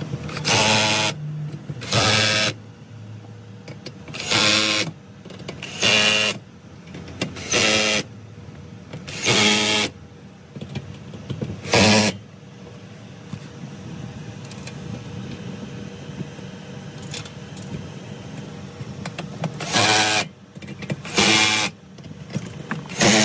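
Cordless drill-driver whirring in short bursts of about half a second, driving screws into a steel panel bracket. About seven bursts come in the first twelve seconds, then a pause, then three more near the end.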